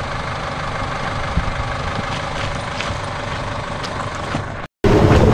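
Force Gurkha's diesel engine idling steadily. Near the end an abrupt cut brings in a louder engine running with a steady drone.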